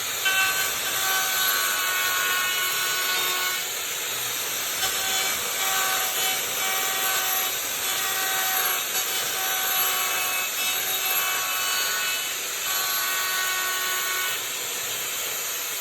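Handheld router cutting a profile along the edge of a wooden tabletop: a steady high-pitched motor whine over the hiss of the bit chewing through wood. The whine comes up and dies back about four times as the cut goes on.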